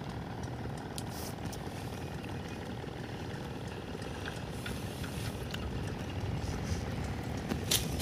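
A freshly landed kapuran fish flapping against dry grass and twigs: scattered faint crackles, coming thicker and louder near the end, over a steady low outdoor rumble.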